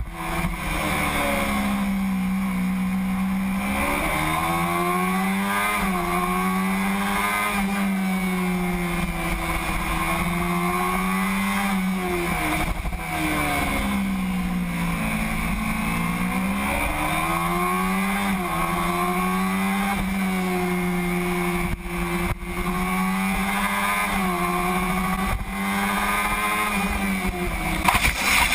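Kawasaki Ninja 250R's parallel-twin engine running hard on track, heard from onboard over wind rush. Its pitch climbs through the gears and dips at each shift and braking zone. Right at the end a louder, rough noise breaks in as the front tyre lets go and the bike goes down.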